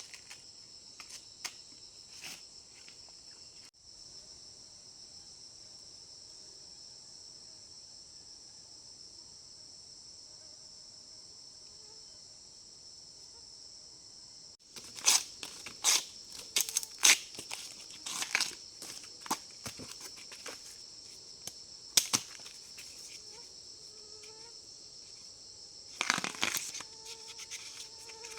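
A steady high-pitched insect chorus, with a run of sharp snaps and crackles starting about halfway through.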